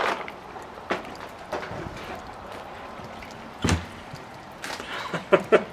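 Clear plastic bag rustling and crinkling as a turbocharger is unwrapped and handled, with scattered clicks. A dull thump comes about three and a half seconds in, and a few sharp clicks near the end.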